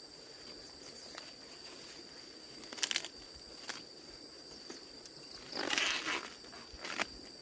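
Dry corn plants rustling and crunching in short bursts, the longest and loudest about six seconds in, with a thin steady insect drone behind.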